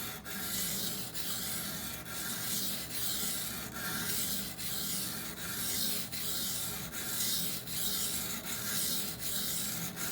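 A 20CV steel knife blade being stroked back and forth on a coarse, wet Norton 220-grit water stone, giving a steady gritty scraping. The strokes come in an even rhythm, a little more than one a second, under light pressure.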